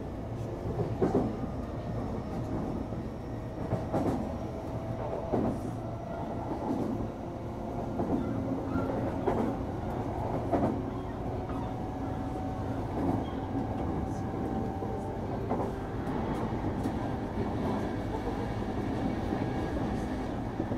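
JR E233-series electric commuter train running between stations, heard from inside the car: a steady rumble of wheels on rail under a faint, steady motor hum, with a few irregular knocks from the track.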